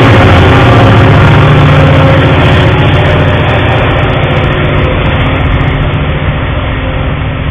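Diesel freight locomotive passing close by with its engine running, a loud steady drone that slowly fades as the train's freight cars roll past.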